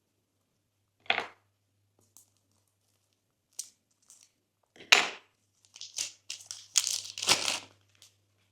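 Slime being squished and worked by hand, giving short crackling, popping squelches in separate bursts: one about a second in, the loudest around the middle, and a dense run near the end.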